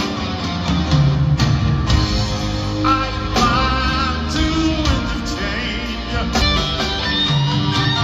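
Live rock band playing in an arena: drums, piano and guitar, with a wavering lead line over a steady beat.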